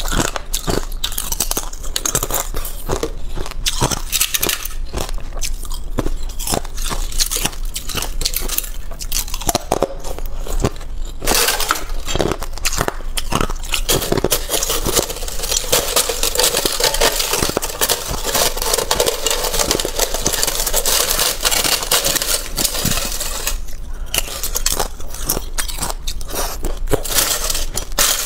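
Teeth biting and crunching thin pieces of clear balloon ice, a fast run of sharp cracks and crackles. About eleven seconds in it gives way to a metal spoon digging and scraping through crushed ice inside the hollow ice shell, a denser continuous crunching.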